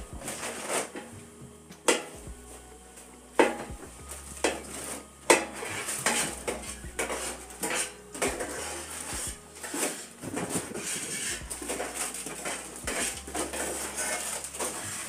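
Metal spatula clanking and scraping in a steel frying pan while food is stirred, in irregular clinks about a second apart.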